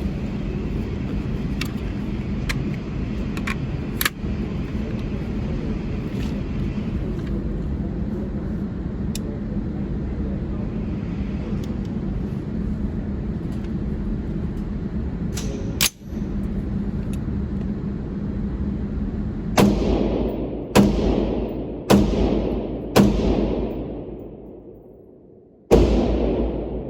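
Five rifle shots, the first four about a second apart and the last after a longer pause, each trailing off in a long echo. Before the shots there is a steady low rumble.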